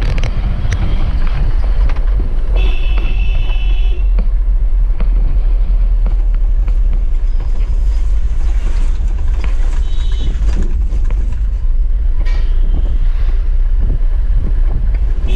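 Steady low engine and road rumble inside the cab of a Mahindra pickup truck on the move. A horn sounds briefly about three seconds in and again around ten seconds.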